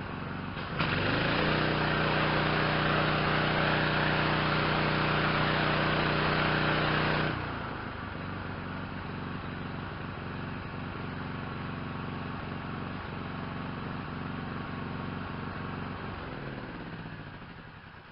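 Yamaha PW4040 gas pressure washer's 357 cc Yamaha MZ360 engine running. About a second in, the spray gun opens and a loud hiss of high-pressure water joins the engine for about six seconds, then stops abruptly. The engine then runs on alone and dies away near the end.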